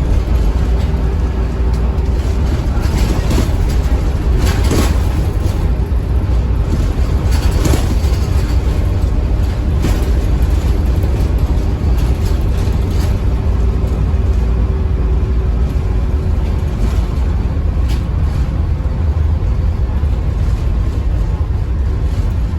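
Bus engine and ZF automatic transmission running under way, a steady loud low rumble with a faint held tone in the middle stretch. There are a couple of brief knocks or rattles about five and eight seconds in.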